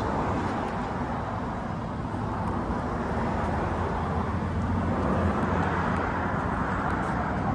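Steady outdoor rumble of road traffic, swelling slightly around the middle as a vehicle passes.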